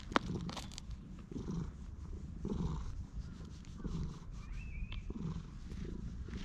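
Tabby cat purring while being stroked, a low rumble that swells and fades with each breath. A single sharp click comes just after the start.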